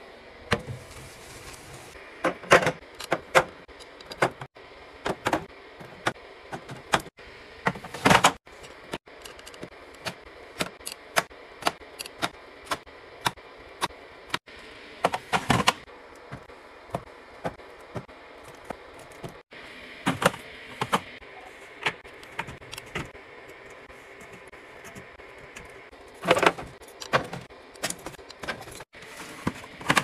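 Items being restocked into a fridge: an irregular run of sharp taps, clicks and clatters as clear plastic organizer bins, plastic water bottles, cans and juice boxes are set down and slid into place, over a low steady hiss.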